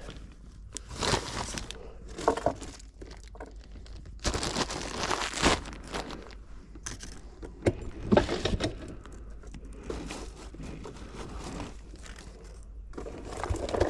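Irregular rustling, crinkling and scraping with scattered knocks: gear and bags being handled right next to a GoPro left recording, so the handling noise is close and loud on the microphone.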